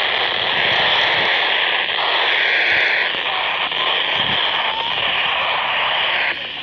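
Steady FM static hissing from a Baofeng handheld radio's speaker, tuned to the AO-91 amateur satellite's 145.960 MHz downlink, with only faint traces of signal under the noise. The hiss dips briefly just before the end.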